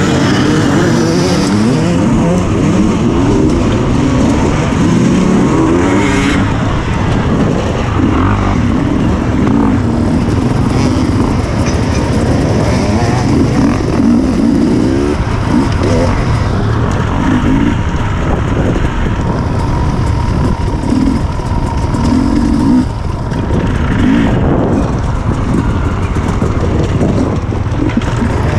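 Several enduro dirt-bike engines revving and running together, with many overlapping pitches rising and falling.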